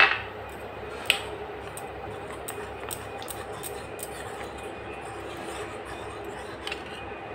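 Steel spoon clinking against a small ceramic bowl while stirring cornflour into water: a sharp clink at the start, another about a second in, then a run of light taps. A steady hum runs underneath.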